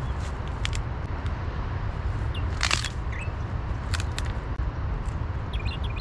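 Scattered clicks and snaps of a campfire being lit, with one louder crackling burst about halfway through, over a steady low rumble of wind on the microphone.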